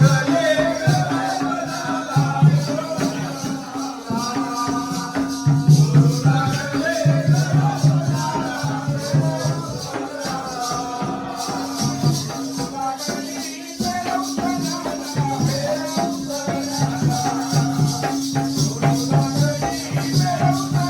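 Jakhadi folk song: a man singing a wavering melody over a steady rhythm of drum strokes and jingling small cymbals, with a held drone note underneath.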